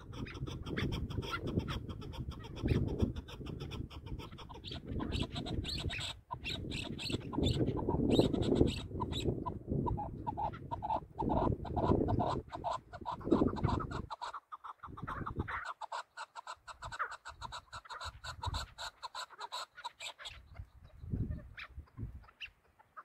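Chukar partridges calling in long runs of rapid, repeated notes. A low rumbling noise lies under the calls for roughly the first half.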